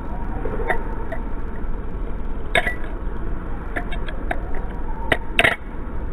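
Balisong butterfly knife being flipped through a twist rollover loop: its handles click and clack against the tang pins in irregular sharp metallic clicks, the loudest a quick pair about five seconds in, over a steady low background rumble.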